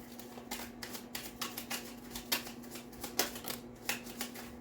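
A tarot deck being shuffled by hand: an irregular run of quick card snaps and slaps, louder now and then.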